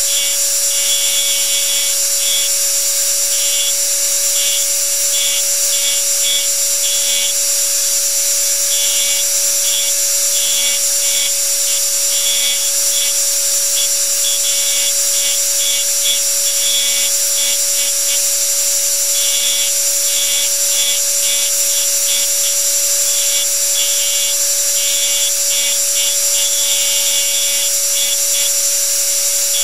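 Power engraving machine running steadily, its graver point chattering in short, irregular bursts as it cuts into the metal of a nickel.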